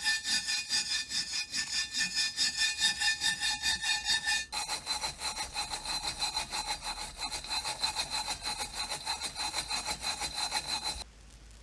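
Hand sawing or filing: quick, even back-and-forth strokes with a ringing tone over them. The ring changes pitch abruptly about halfway through, and the strokes stop suddenly near the end.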